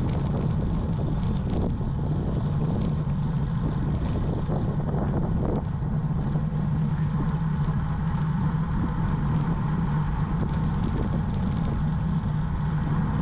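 Steady wind and road noise from a road bike in motion: wind rushing over the bike-mounted camera's microphone along with tyre rumble on the tarmac.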